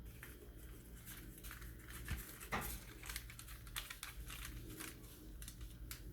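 Light crinkling and a string of small clicks and taps from hands handling the pot pies and their pans, with one louder knock about two and a half seconds in.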